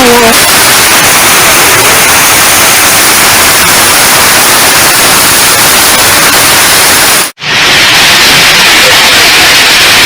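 Heavy rain falling, a loud steady hiss, cut off for an instant about seven seconds in before it resumes.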